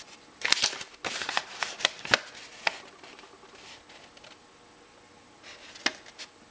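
Paper instruction sheet rustling and crackling as it is handled and turned over, in a quick cluster of crisp bursts over the first three seconds, then a single sharp click near the end.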